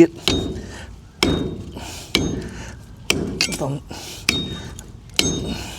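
Long-handled slasher blade chopping into wood: six strikes about a second apart, each hit followed by a short metallic ring from the blade.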